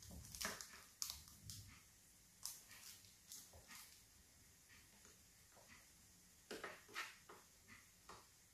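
Faint, short, irregular scrapes and taps of a spoon spreading melted chocolate in a parchment-lined metal loaf tin.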